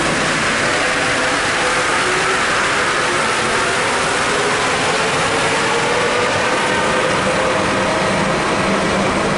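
Alstom NS16 metro train pulling out of the station: a steady, dense rumble of wheels on rail with a faint motor whine.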